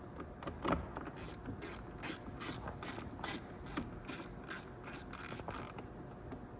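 Hand ratchet clicking at an even pace, about two to three clicks a second for some five seconds, as screws are driven in.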